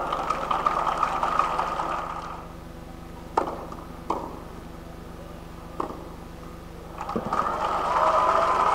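Crowd applauding and cheering, then a short tennis exchange with three sharp racket strikes on the ball in a quiet stadium, and another strike before applause and cheers swell again near the end.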